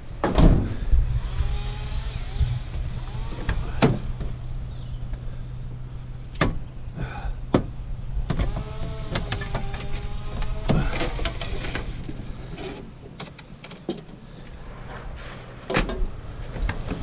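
Scrap being handled and set down: a scattering of knocks and clanks, with a wavering squeak for a couple of seconds in the middle, over a steady low hum that fades out about three-quarters of the way through.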